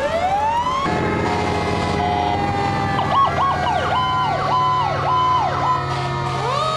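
Several fire truck sirens sounding together. One siren's pitch rises at the start and again near the end, and in the middle another siren sweeps rapidly up and down about twice a second over steady held tones.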